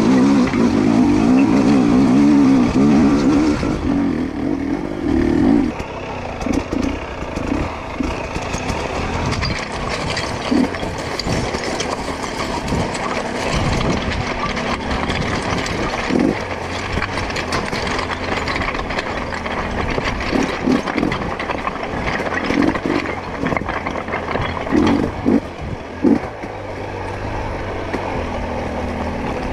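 2022 GasGas EC250 two-stroke dirt bike engine held at high revs for the first five seconds or so, then running lower with short, repeated blips of the throttle as the bike picks its way over loose rock.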